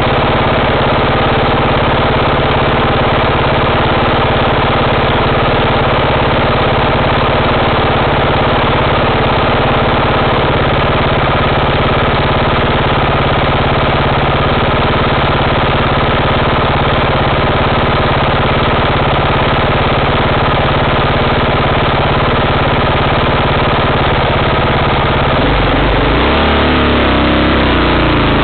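An off-road vehicle's engine idling steadily, then revving up about 25 seconds in, its pitch rising and wavering as it pulls away.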